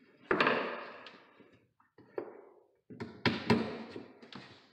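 Claw hammer driving nails into a new pine stair tread: about five sharp blows with a ringing tail after each, the loudest about a third of a second in and two close together about three and a half seconds in.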